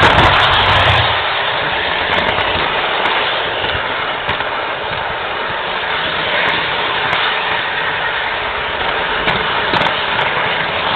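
Model train running along the track, heard through its onboard camera: a steady rattling hiss with a few faint clicks.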